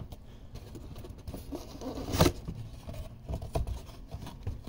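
Cardboard parts box being handled and opened: scattered light taps and scrapes of cardboard, the firmest knock about two seconds in.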